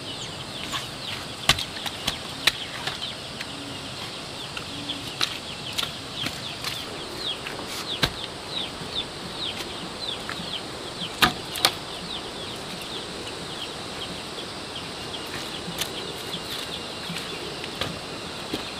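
Scattered sharp knocks of heavy stones being set down and shifted against one another at the base of a bamboo fence. Behind them, short high bird chirps repeat constantly.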